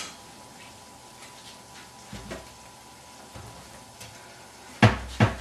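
Stainless steel soup pot of vegetable broth simmering quietly on an electric stovetop, with a few faint ticks. Near the end come two sharp metallic knocks close together: a spoon striking the pot as stirring begins.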